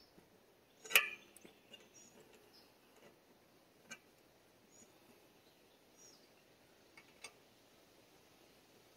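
Metal pipe fittings being handled and knocked together: one sharp clank about a second in, then a few light clicks. Birds chirp faintly now and then.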